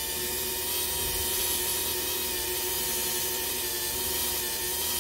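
Handheld rotary tool running steadily at about 5,000 rpm, spinning a foam polishing pad that buffs compound over the clear-coated plastic body of a model car: an even motor whine.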